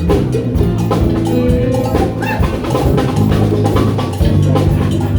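A band playing live music: a drum kit with bass drum and snare keeps the beat under steady low bass notes.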